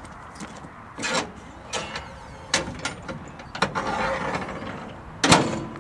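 Clanks and rattles from the metal cargo bed of a Club Car Carryall Turf 2 as it is handled and tipped up: about five separate knocks with some scraping between them. The loudest clank comes near the end and leaves a brief metallic ring.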